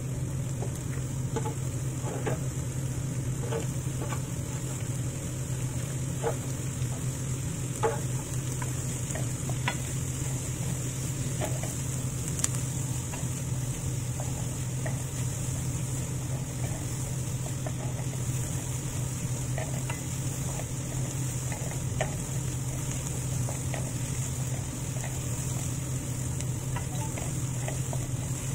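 Diced onions sizzling in butter in a pan while a wooden spatula stirs them, with scattered scrapes and taps of the spatula against the pan. A steady low hum runs underneath.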